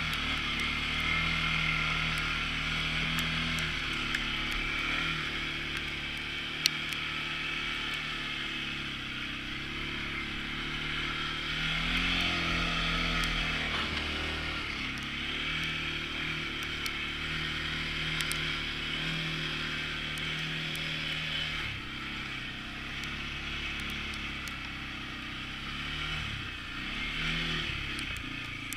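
CFMoto CForce ATV engine running under way, its revs rising and falling several times as the throttle changes, with a steady hiss over the engine note.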